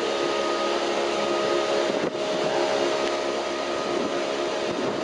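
Footplate of Bulleid Battle of Britain class light Pacific steam locomotive 34067 Tangmere: a steady hiss of steam with a few steady tones running under it.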